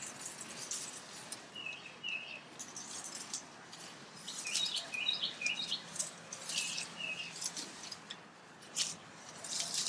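A songbird chirping repeatedly in short, quick phrases of two or three notes. Light scratchy rustling comes from hands working soil and plants.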